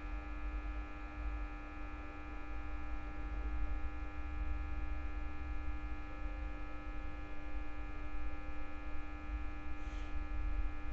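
Steady electrical mains hum with a low rumble underneath, and a brief faint scratch near the end.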